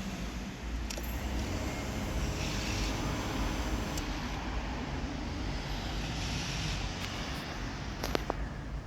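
Aprilia Pegaso Strada's single-cylinder engine being cranked by its starter motor, turning over steadily without firing: a no-start despite compression and spark. A few sharp clicks come about eight seconds in.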